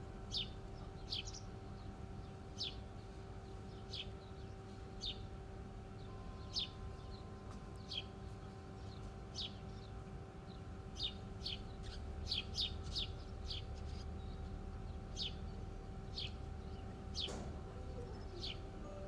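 A bird chirping repeatedly in short, high, falling chirps, roughly once a second, with a quicker run of chirps a little past the middle, over a steady low hum.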